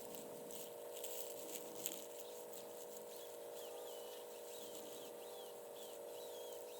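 Faint steady hum with a few light clicks, and from about three seconds in a bird repeating short chirping notes about twice a second.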